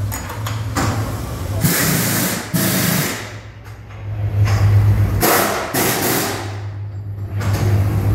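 Pneumatic wheel guns on a race car rattling in several short bursts, with a hiss of air, over a steady low hum: wheel nuts being run off and on in a tyre change.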